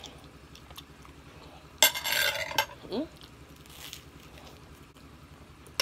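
Close-miked eating sounds of fettuccine and crusty garlic bread: a loud noisy crunch about two seconds in, a short hummed 'mm' around three seconds, and a softer crunch near four seconds as the garlic bread is bitten.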